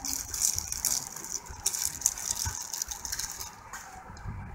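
Thin plastic wrapper crinkling and rustling as a phone battery is pulled out of it, in quick irregular crackles that die down after about three seconds.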